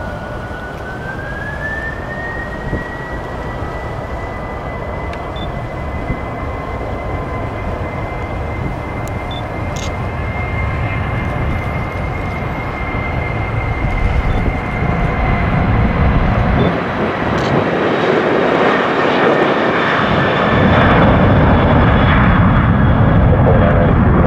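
Jet engines of a Boeing 767 freighter spooling up to takeoff thrust during the takeoff roll. A steady fan whine rises in pitch in the first couple of seconds and then holds. Under it, the engine noise grows steadily louder and is loudest near the end as the aircraft lifts off.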